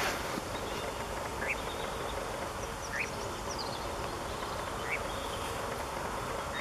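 Three short rising calls of the European nightjar in flight, about a second and a half apart, over a steady background hiss.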